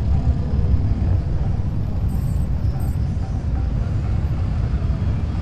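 Steady low rumble of motorcycle engines running in the street.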